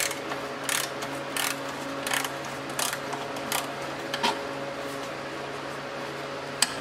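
A small ratchet with a 10 mm socket clicking in short bursts, one about every three-quarters of a second, as it loosens the battery hold-down bracket nut. The clicking stops a little past four seconds in, and a single sharp click comes near the end.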